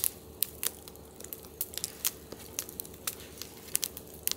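Wood fire crackling in a brazier, with irregular sharp pops and snaps, while the pages of an old hardback book are turned by hand.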